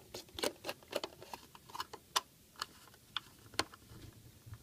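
Flat-blade hand screwdriver turning a screw into the plastic case of a Fluke 435 analyzer: a run of light, sharp, irregular clicks, about two or three a second, as the blade works in the screw head.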